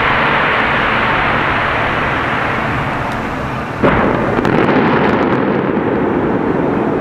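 Fireworks display bursting: a steady din of many explosions, with a sudden loud bang about four seconds in that starts a new, denser volley.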